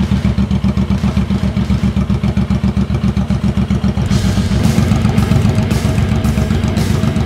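Suzuki Boulevard M109R's fuel-injected 109 cubic inch V-twin idling through its custom exhaust, a steady, rapid pulsing beat.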